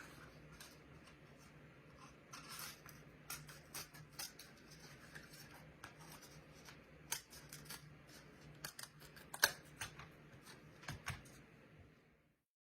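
Scissors snipping through a cardboard toilet paper roll: a run of short, irregular cuts, with one sharper snip about nine and a half seconds in.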